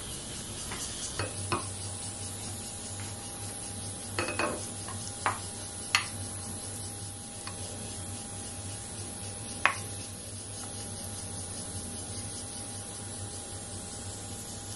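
A wooden spoon scraping and tapping as it spreads tuna salad on a slice of toast on a bamboo cutting board: a few sharp light taps, most of them in the first ten seconds, over a steady hiss.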